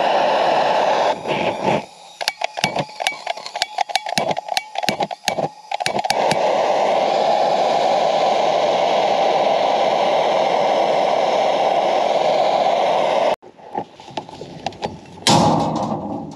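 Handheld propane torch flame hissing steadily as it thaws a frozen rebar cutter-bender. Between about one and six seconds in the hiss breaks up into a run of clicks and sputters, then runs steady again until it cuts off suddenly about thirteen seconds in. A brief loud noise follows near the end.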